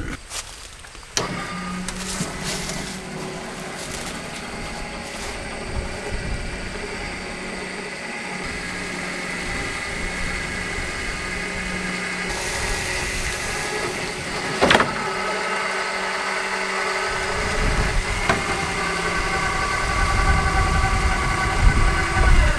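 A grain truck's engine starting and running at a steady idle, with a sharp click about fifteen seconds in and the low rumble growing toward the end.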